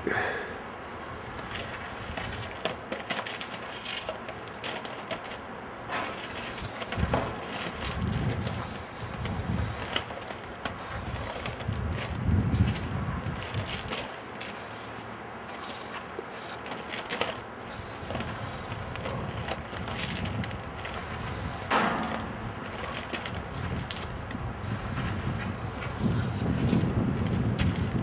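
Aerosol spray paint can hissing in repeated bursts that start and stop every second or so as paint goes onto metal.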